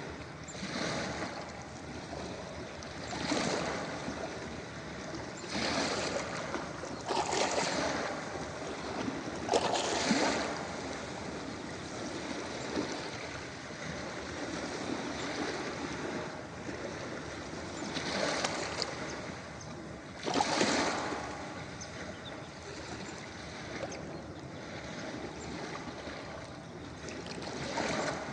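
Ocean waves breaking on a beach: a steady wash of surf with louder surges as waves crash every few seconds, and a calmer stretch in the middle.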